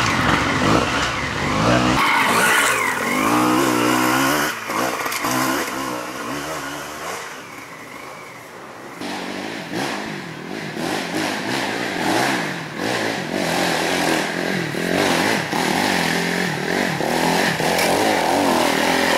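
Off-road dirt bike engines revving up and down under hard throttle on a rough trail climb. The engine sound dies down for a couple of seconds in the middle, then another bike approaches, its engine rising and falling as the rider works the throttle.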